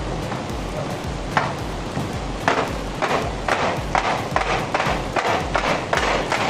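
Background music with a steady low beat. From about two and a half seconds in, sharp taps come about twice a second in an even rhythm.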